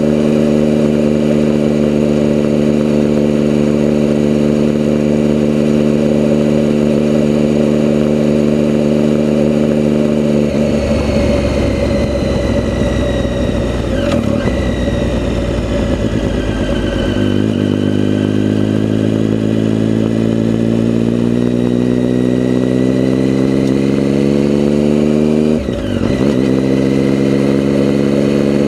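Vehicle engine running steadily under way. About ten seconds in, the steady note gives way to a rough, noisy stretch. Then the engine pitch climbs steadily as it accelerates, breaks briefly near the end as if for a gear change, and settles again.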